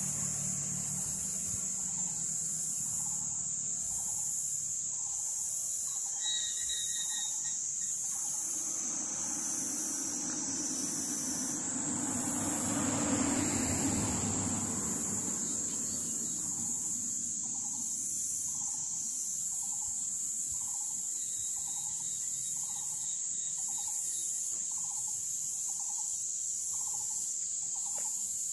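Insects trilling in a steady, high-pitched drone, with a softer call repeating about once a second underneath. About midway, a vehicle passes on the road, swelling and fading.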